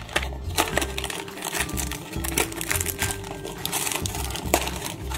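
Thin cardboard box being torn open by hand: a run of short ripping and crinkling noises. Background music with a steady bass beat plays underneath.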